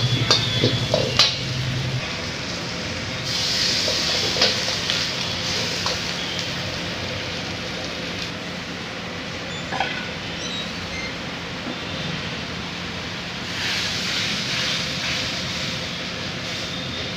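Food frying in a steel wok over a gas burner, sizzling steadily while a metal ladle stirs and scrapes, with an occasional clink of the ladle on the wok. The sizzle swells twice, a few seconds in and again near the end.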